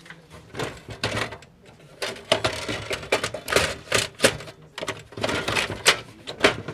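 An irregular run of clattering clicks and knocks, several a second, with louder strikes from about two seconds in.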